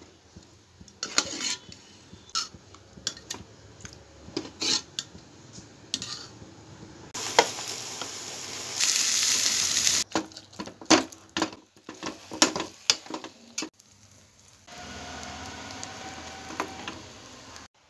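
Cooking sounds: a spoon and masher clinking and scraping against a metal pot while stirring curry and mashing boiled potatoes. Two stretches of sizzling come from frying, the longer one near the end.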